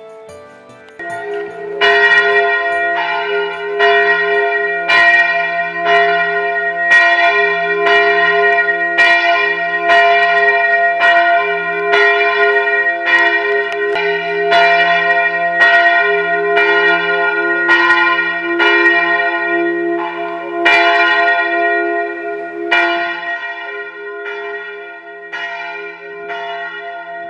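Church tower bell ringing, struck about once a second, each stroke leaving a long hum that carries into the next.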